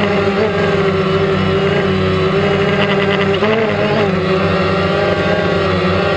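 DJI Phantom quadcopter's rotors humming steadily, heard on board as a loud buzz of several held tones. The pitch wavers briefly about three and a half seconds in as the motors change speed while the drone manoeuvres.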